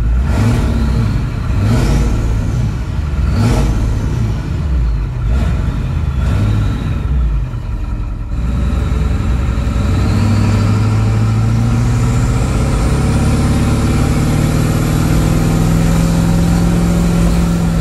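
Ford 7.3-litre turbo diesel with its exhaust chopped off before the rear axle, revved in several short blips, a high whine rising and falling with each. About ten seconds in it pulls away and accelerates, its note and the whine climbing steadily.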